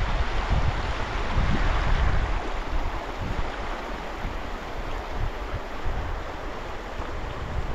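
Shallow river running over rocks, a steady rushing hiss, with wind buffeting the microphone in gusts that are strongest in the first couple of seconds.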